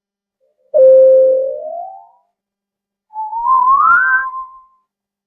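Two cartoon sound effects, one after the other: first a whistle-like tone that holds and then slides upward, then a higher wavering tone that wobbles up and settles back down.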